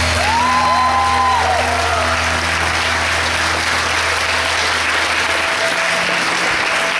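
Audience applauding over background music; the music's steady bass drops out about five and a half seconds in.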